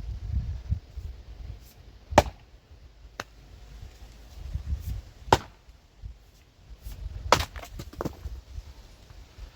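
An axe chopping and splitting firewood: three sharp strikes about two to three seconds apart, with a couple of lighter knocks in between, over a low rumble.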